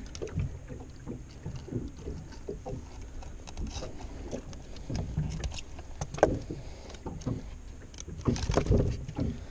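Handling noise in a small boat as pliers work at the hook in a bowfin's mouth: scattered clicks and knocks over a low rumble, with a sharper knock about six seconds in and a cluster of knocks near the end.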